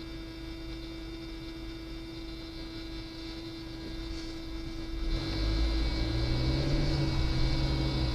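Abnormal humming noise from the passenger side of a 2018 Honda HR-V's cabin: a steady tone, joined about five seconds in by a louder, deeper hum. It is a noise that comes and goes and whose source the owner has not found; there is no CD in the player.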